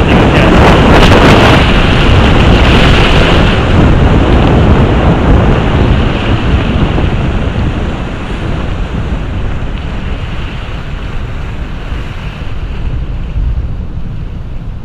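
Wind buffeting the microphone over the rush of rough sea waves, a steady roaring noise that is loudest in the first half and then eases somewhat.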